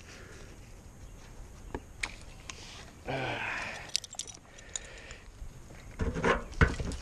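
Metal climbing hardware (carabiners and a mechanical rope device on a harness) clinking and jangling as a climbing rope is pulled through by hand. A rough scraping rush comes about three seconds in, and a cluster of louder knocks near the end.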